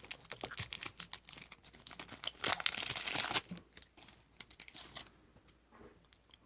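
Foil trading card pack wrapper being torn open and crinkled: a run of quick crackles, with the loudest tearing stretch about two and a half seconds in, then quieter handling near the end.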